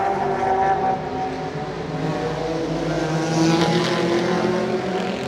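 Race car engines running at high revs, several held tones at once, with one car coming closer and louder about three and a half seconds in.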